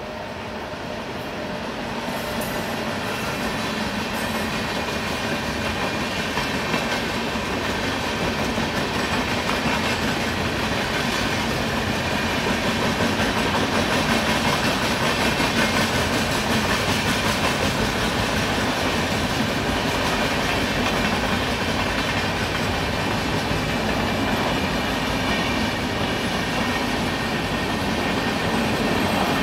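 Train passing on nearby tracks: a steady rumble and rattle of rolling wheels and wagons that grows louder over the first few seconds and then holds.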